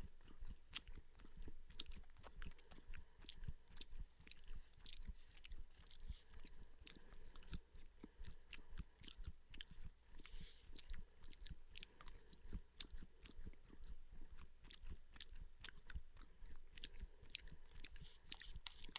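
A person chewing food close to a headset microphone: a steady run of small, irregular crunches and clicks, several a second.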